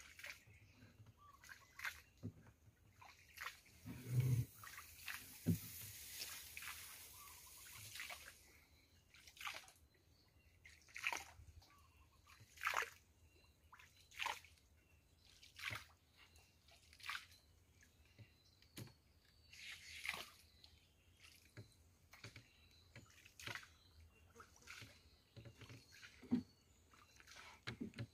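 Paddle strokes in canal water from a small rowed boat, a soft splash about every one and a half seconds, with a couple of low knocks near the start.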